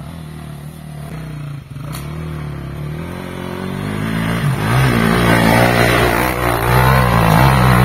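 Off-road motorcycle engine running, then revving harder and growing louder from about halfway through as the rider takes on a steep dirt uphill.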